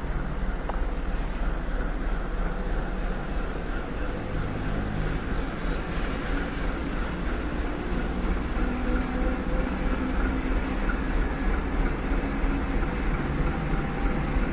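ChME3 diesel shunting locomotive's six-cylinder diesel engine running steadily as it moves a train of freight wagons slowly through the station.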